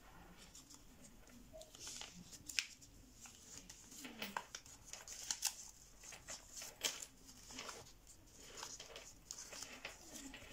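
Sheet of 80 g/m² orange printer paper being folded by hand: soft rustling broken by frequent short, sharp crinkles and clicks as a layer is opened out and creases are pressed flat.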